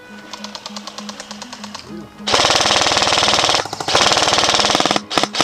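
Airsoft rifle firing on full auto: two long bursts of rapid, evenly spaced shots about halfway through, split by a brief pause.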